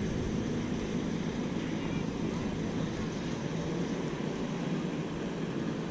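Steady low rumble of distant motor traffic, an even background hum with no distinct events.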